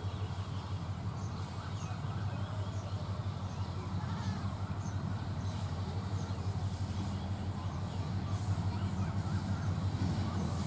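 Steady low rumble of a diesel train engine, growing gradually louder as it approaches, with birds chirping over it.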